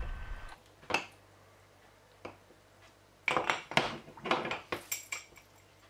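Metal table knife clinking and scraping against the inside of a glass jar as it is worked down the sides through milk, pepper and cheese. Two single clinks come first, then a quick run of clinks and scrapes over the following two seconds.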